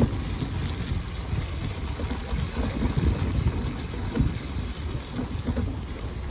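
Wind buffeting the phone's microphone, a gusty low rumble.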